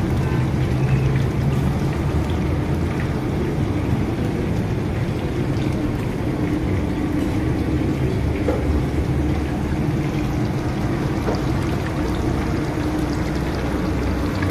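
Battered fish deep-frying in a large karahi of hot oil: a steady bubbling sizzle, with a constant low rumble underneath.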